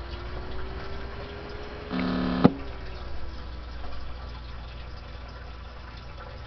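Small cooling fan running with a steady whirring hiss. About two seconds in, a brief pitched buzz lasting half a second cuts off with a sharp click.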